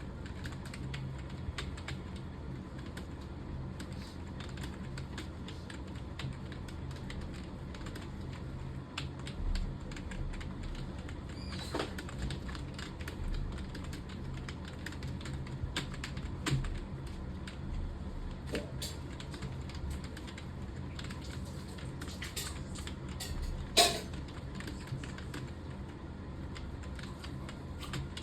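Continuous typing on a computer keyboard: a fast, uneven stream of key clicks over a low steady hum, with one much harder key strike late on.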